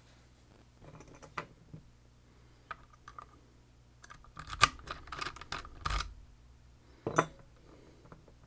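Small hard clicks and rattles of a padlock and lock picks being handled: a few at about one and three seconds in, a busy cluster from about four to six seconds, and one sharp click near seven seconds.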